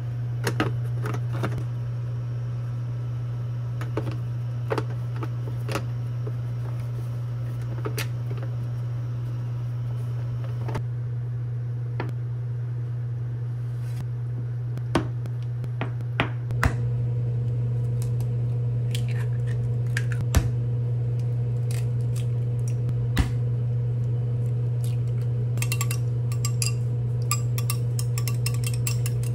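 Scattered clicks and clinks of kitchen utensils and dishes over a steady low hum, which gets a little louder about 17 seconds in.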